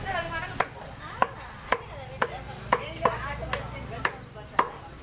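Meat cleaver chopping chicken pieces on a wooden log chopping block, sharp strikes about two a second.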